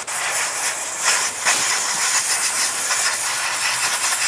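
A loud, steady, hissing jet blown at the motorcycle fuel pump's filter screen to clean grit and fuel residue out of it.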